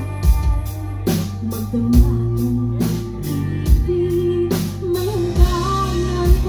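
Live pop-rock band playing a ballad: drum kit with a steady kick beat, a little more than one a second, under bass and guitar, with a singer's voice carrying the melody in the second half.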